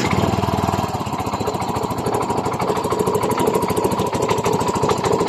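Yamaha Mio i 125 single-cylinder scooter engine running with a fast, even knocking rattle: piston slap.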